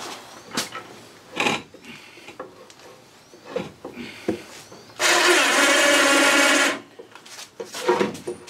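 Knocks and clunks of a Johnson 25 hp outboard motor being handled and shifted on its stand, with a loud, steady mechanical whirr lasting under two seconds about five seconds in.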